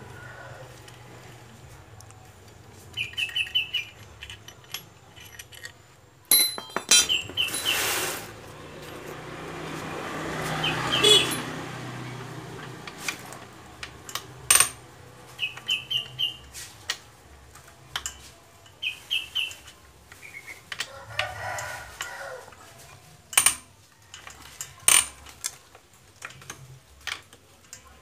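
Socket wrench and ratchet working the bolts of a stripped Honda Vario 125 engine: scattered sharp metallic clicks and clinks, some in quick runs. Short runs of high bird chirps come and go, and a hiss swells and fades near the middle.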